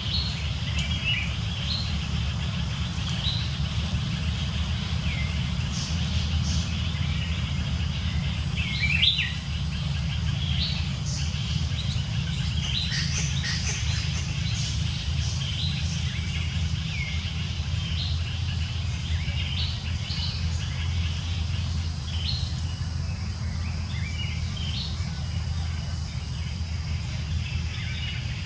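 Forest birds chirping and calling in short, scattered notes, a louder call about nine seconds in, over a steady low rumble.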